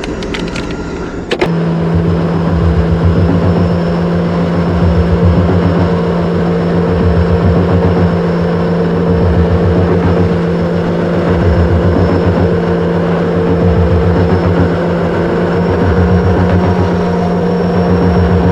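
Sea-Doo RXP-X 300 jet ski's supercharged three-cylinder Rotax engine running hard. A few sharp clicks come in the first second or so. About a second and a half in the engine note steps up louder, then holds a steady high drone.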